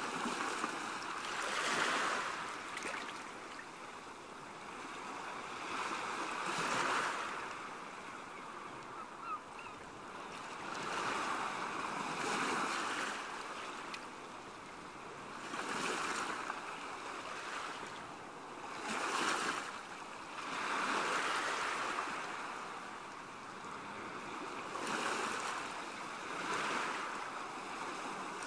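Small sea waves washing onto a shore, each wash swelling and fading every few seconds.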